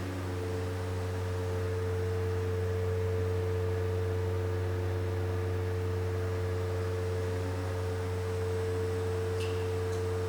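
Stuck elevator's machinery giving off a steady drone: a strong low hum with several higher, level tones over it, unchanging throughout. The uploader suspects the traction motor has broken free and is turning while the car stays stuck.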